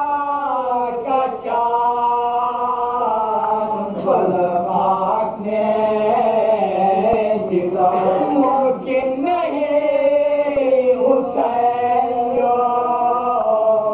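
A group of men reciting an Urdu marsiya (an elegy) in soz-khwani style, their unaccompanied voices singing together in long held notes that rise and fall.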